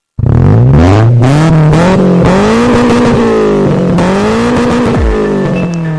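Car engine revving up and down again and again, its pitch climbing and falling in smooth swells about a second long.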